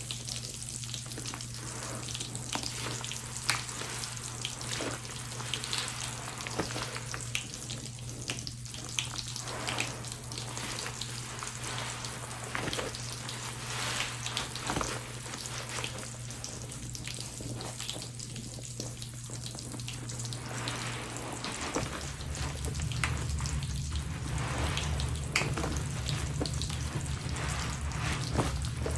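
Soapy sponges squeezed in a sudsy mix of pine cleaner and bath crackles, giving a wet, steady crackling fizz full of tiny pops.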